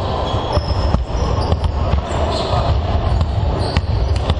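Several basketballs bouncing irregularly on a hardwood court, each thud ringing in a large, echoing sports hall over a steady background din.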